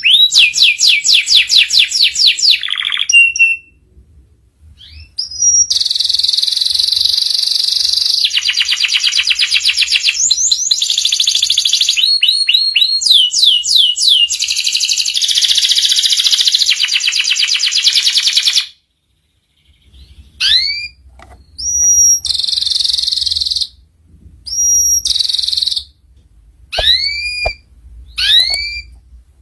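Domestic canary singing: long rolling trills of rapidly repeated high notes. After a short pause about two-thirds through, it gives single curved whistled notes a second or two apart.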